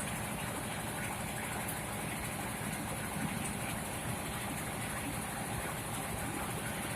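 Old rice-hulling mill machine running steadily with a continuous mechanical drone.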